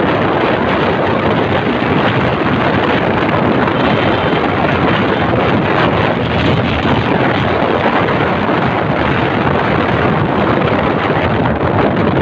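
Loud, steady rush of wind buffeting the microphone on a moving Honda XRM 125 Fi motorcycle, mixed with the bike's running and road noise.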